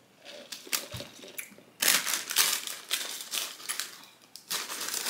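Paper food packaging being crumpled and rustled: a few light crinkles at first, then from about two seconds in a dense run of crumpling, a brief break, and more crumpling near the end.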